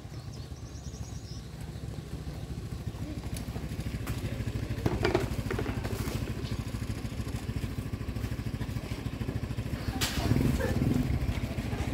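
A small engine running steadily nearby with a fast, even low pulse, growing louder after about ten seconds.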